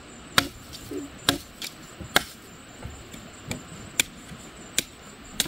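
A knife chopping into a length of green bamboo: sharp, single knocks about one a second, as the blade is struck into the stem to cut and split it.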